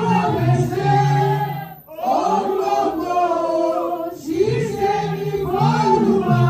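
A man singing a prayer chant through a microphone, with long held, sliding notes and a short break about two seconds in.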